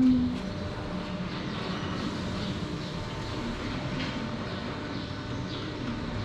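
Steady low rumble of a vehicle engine running, with the end of a cow's moo at the very start.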